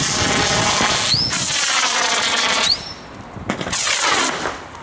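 Comet 66-shot firework battery firing comet shots: each shot is a loud hissing rush lasting over a second that ends in a short, high rising squeal, two of them back to back. After that it drops back, with two shorter rushes near the end.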